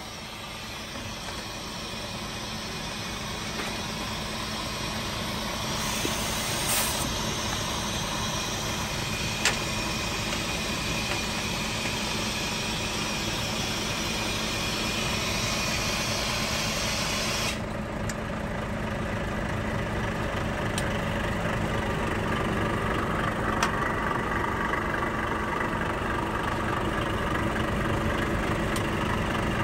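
Semi-truck's diesel engine idling steadily, with a hiss over it that cuts off suddenly about 17 seconds in.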